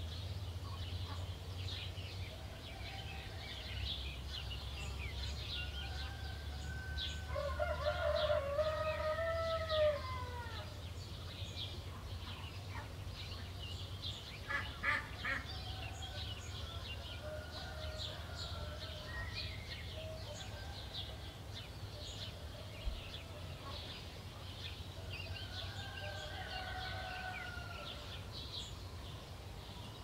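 Many small songbirds chirping and twittering, with a rooster crowing once loudly about seven seconds in and again more faintly near the end. A low steady rumble runs underneath.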